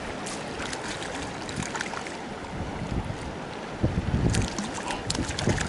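Wind buffeting the microphone over the steady rush of a river, with gusts swelling about four seconds in and a few brief splashes near the end as a hooked trout is brought to the landing net.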